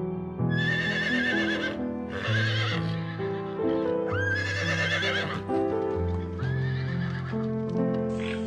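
Four wavering, quavering animal calls, each about a second long, over soft background music with held piano-like notes.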